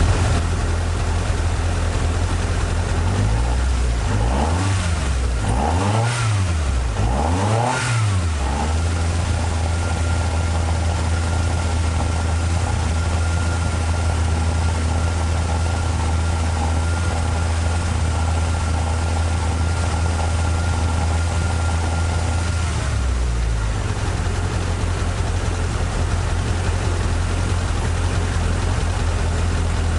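Toyota AE86 Trueno's 4A-GE four-cylinder engine idling, blipped three times in quick succession about four to eight seconds in, then settling back to a steady idle. A thin steady whine runs over the idle from about ten seconds in until just past twenty seconds, where the engine note shifts slightly.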